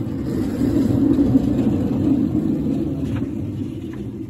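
7¼ inch gauge battery-electric miniature locomotive running away along the track, a steady low rumble that swells about a second in and then fades, with a couple of light clicks near the end.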